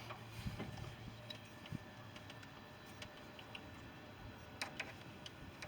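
Faint, scattered light clicks and taps of hand work on a hose and hose clamp, with a low hum that fades after the first second or so.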